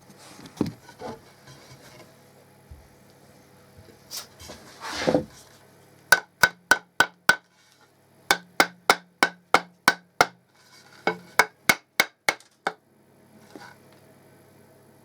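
Hammer blows driving a new hickory handle into an old axe head's eye: three runs of sharp, evenly paced strikes, about three a second, with a slight ring, starting about six seconds in after some scattered knocks and handling noise.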